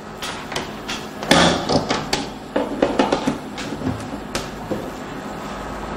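Irregular clicks and knocks of a fan's power plug and cord being handled and pushed into the outlet of a home-built inverter, the loudest knock about a second in. A faint steady hum runs underneath.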